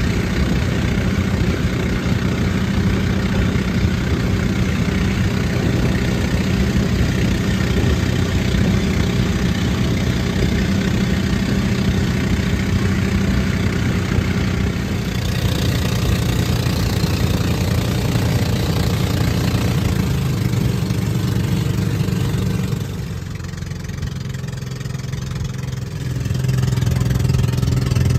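Outrigger boat's engine running steadily under way. It eases off for a few seconds about twenty-three seconds in, then picks up again near the end.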